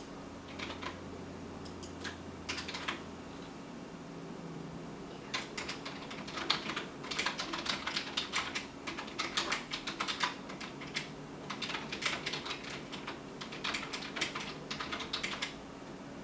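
Typing on a computer keyboard: a few scattered keystrokes at first, then fast, continuous typing from about five seconds in that stops shortly before the end. A faint steady hum runs underneath.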